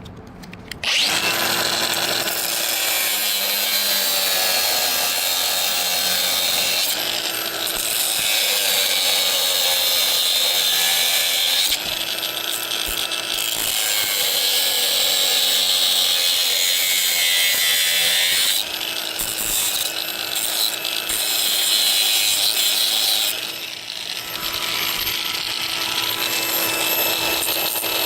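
A handheld power tool starts about a second in and runs continuously under load, cutting or boring into the gate hardware. Its pitch and grind shift several times, with short dips in level about a third and two thirds of the way through.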